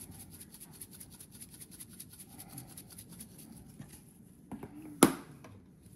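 Dried parsley being shaken from a spice container into a mixing bowl: a quick run of light rattling taps for about four seconds, then one sharp knock about five seconds in.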